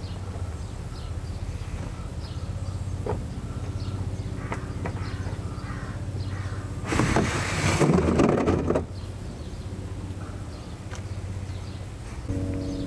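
Black plastic oil drain pan scraping as it is slid out from under the car across cardboard and gravel, a noisy scrape of about two seconds about seven seconds in. A steady low hum runs underneath.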